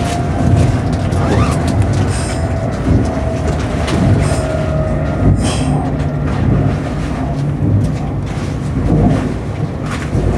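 Meitetsu 1030 series electric train running along the track, heard from inside the front car: a steady running rumble with rail-joint clicks, and a few brief high-pitched wheel squeals around the middle.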